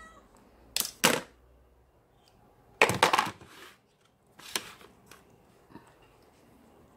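Cat food bowls being set down on a plastic tray: a series of sharp knocks and clatters, two about a second in, a louder cluster around three seconds, one more a little later, then a few faint ticks.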